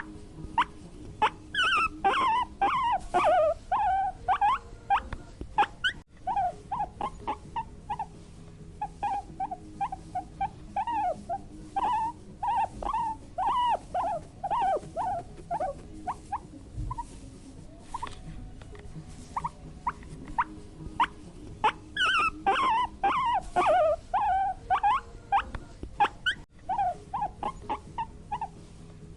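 Guinea pig squeaking in quick runs of short chirps. Twice, about two seconds in and again about twenty-two seconds in, it breaks into louder, higher squeals that bend up and down.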